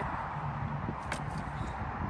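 Faint clicks and rustling as a Yamaha TT-R90 mini dirt bike is handled with its engine off, over a steady low rush of background noise.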